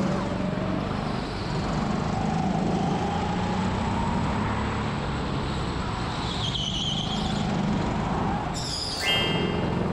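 Go-kart running hard around an indoor concrete track, heard onboard: a steady drone with a faint whine that rises and falls with speed. A brief high squeal comes about two-thirds of the way through and a sharper, louder one near the end, the tyres sliding through corners.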